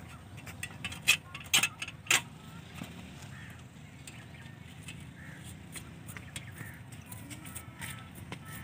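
Metal clicking and light clinking as a bicycle's front fork and a wire are fitted around a stone millstone's centre: three sharp clicks about a second or two in, then scattered small ticks.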